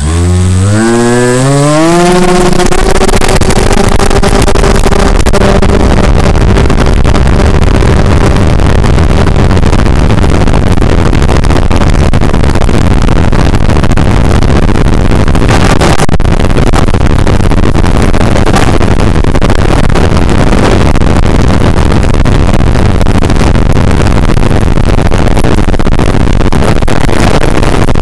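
Skywalker 1900 FPV plane's brushless electric motor and propeller spinning up with a rising whine over about two seconds, then running steadily at high power for takeoff and climb, as heard through the onboard microphone. A loud, steady rushing noise goes with it.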